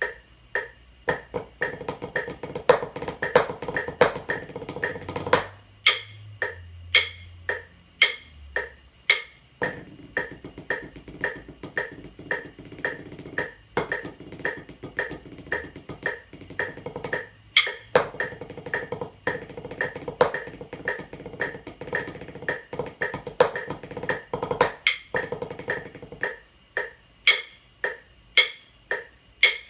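Wooden drumsticks playing a snare drum cadence on a practice pad: stretches of fast rolls and dense sticking, broken by sparser loud accented strokes.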